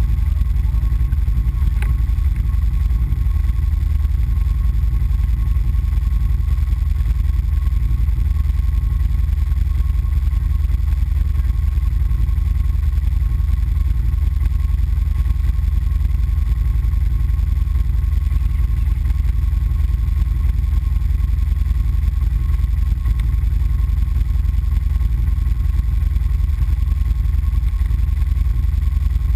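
ATV engine idling steadily while the machine stands still, a low even drone with no revving.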